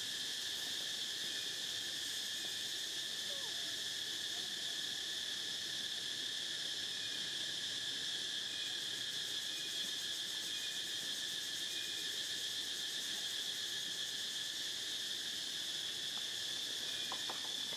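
Steady, high-pitched chorus of insects droning without a break, with a few faint short higher notes dotted through it.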